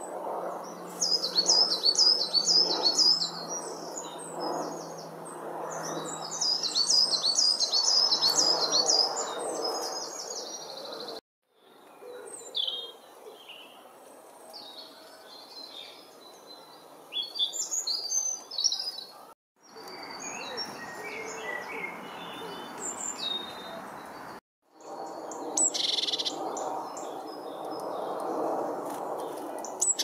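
Great tits calling: runs of quick, repeated high chirps, then scattered short calls, over a steady low background rumble. The sound cuts out briefly three times.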